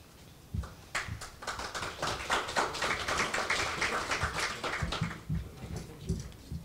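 Audience applauding, starting about a second in and dying away about five seconds in, with a few low thumps around it.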